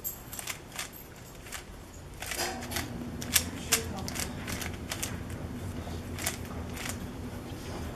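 3x3 speed cube being turned fast during a solve: an irregular run of quick plastic clicks and clacks as the layers snap round.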